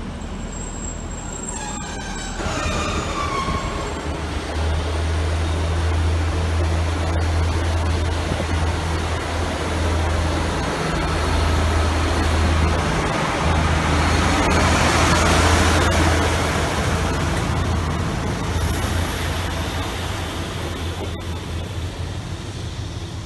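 Class 153 diesel multiple unit running past close by, its underfloor diesel engine giving a steady low drone over rumbling wheels. A short squeal falls in pitch a few seconds in. The noise is loudest as the unit passes, about two-thirds of the way through, then eases as it draws away.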